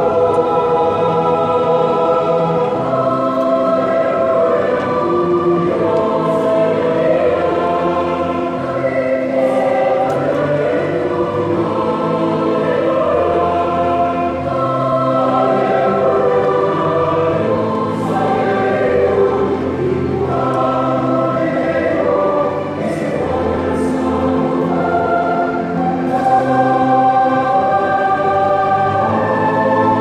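A group of voices singing a worship song together with musical accompaniment.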